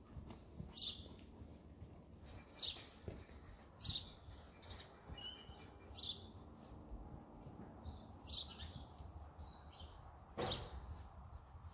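Small birds chirping, one short high chirp every second or two. A single louder, fuller short sound comes near the end.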